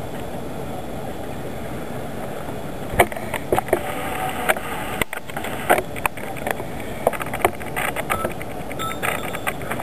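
Passenger coaches rolling past along the platform: a steady rumble of wheels on rails, broken from about three seconds in by irregular clicks and clunks from the wheels and couplings, with a couple of brief squeals near the end.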